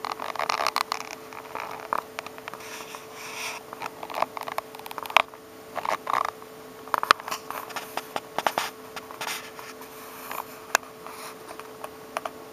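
Irregular clicks, taps and scratchy rustles, coming and going unevenly, over a faint steady tone.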